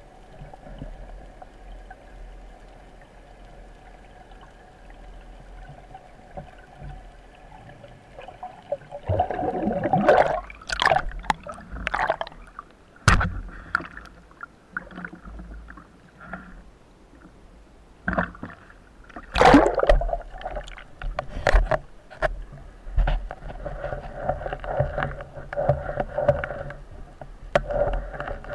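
Water sounds picked up by a spearfisher's camera: gurgling and sloshing in irregular surges, with several sharp knocks. A faint steady hum sits under them at the start.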